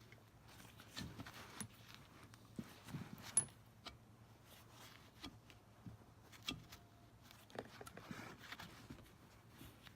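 Faint, scattered clicks and light metal clinks, about a dozen over several seconds, from parts and tools being handled on a semi-hermetic compressor that is being taken apart.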